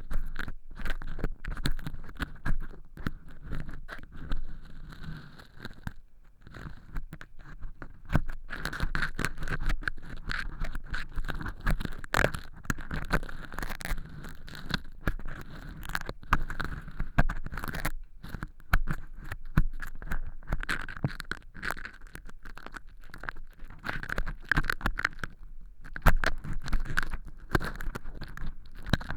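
Close-miked earpick scratching and crunching dry fake earwax made from cork chips inside a transparent silicone ear model: a dense, crackly scraping that goes on with only a few brief pauses.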